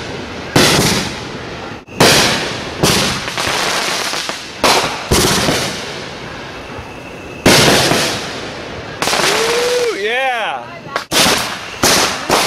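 Aerial fireworks bursting one after another, about a dozen sharp bangs each trailing off into crackle. A few bursts come in quick pairs near the end.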